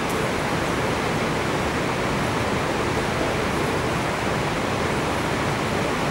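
Steady, loud rushing hiss that does not change and holds no distinct events.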